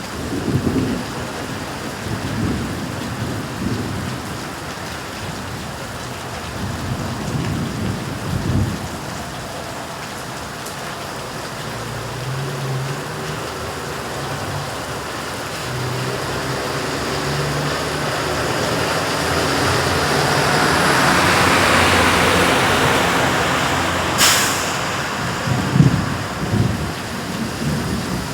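Steady heavy rain. Low rumbles rise and fall at several points, and a broad rush swells to a peak about two-thirds of the way through. A single sharp crack comes shortly after the peak.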